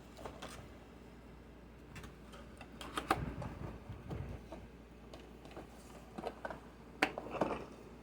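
Handling of a Blu-ray case and its packaging: scattered sharp plastic clicks and taps with some rustling, loudest about three seconds in and again near the end.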